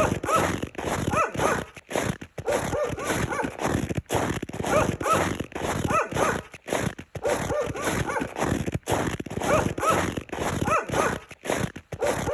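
Footsteps walking through snow, a crunch at each step at a steady walking pace, about one to two steps a second. Each step has a squeaky edge.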